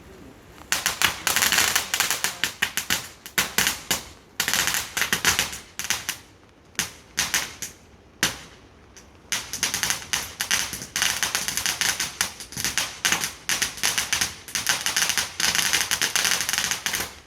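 Fireworks crackling: long runs of rapid, sharp crackles and pops with short breaks between them, starting under a second in and stopping just before the end.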